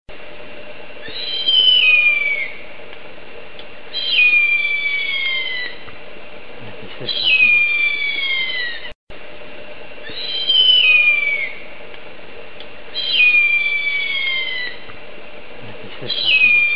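Harpy eagle calling: a high, thin wail that slides down in pitch, repeated six times about every three seconds, over a faint steady hum.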